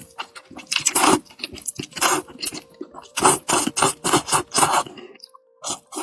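Close-up eating sounds: repeated crunching and chewing bites in an irregular run, pausing briefly about five seconds in.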